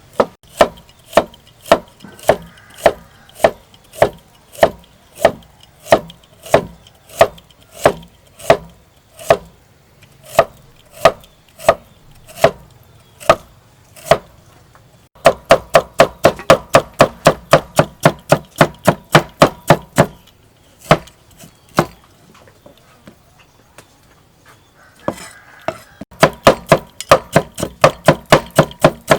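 Knife chopping vegetables on a cutting board. The strokes are slow and steady at first, then come in quick runs of about four a second, with a short pause between the runs.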